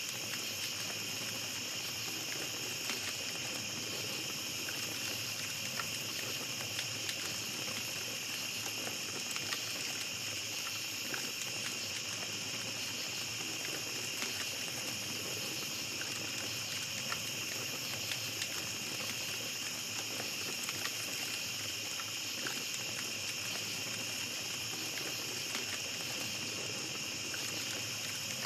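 Small campfire crackling, with scattered faint pops, over a steady high-pitched drone of night insects.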